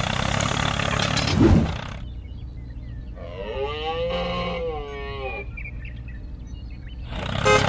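A steady low engine-like hum with noise over it, a short low blip about a second and a half in, then one drawn-out animal-like call of about two seconds that rises and then falls in pitch.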